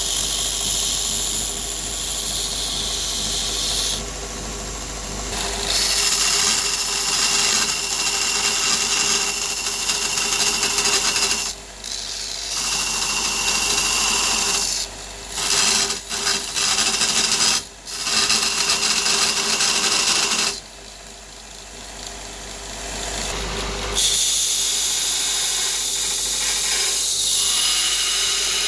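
Belt grinder converted from a 550 W AEG bench grinder, running, with a workpiece pressed against the abrasive belt in repeated passes. A steady grinding hiss over the motor's hum breaks off several times, about four seconds in, around twelve seconds, twice between fifteen and eighteen seconds, and for a few seconds past twenty, leaving only the hum.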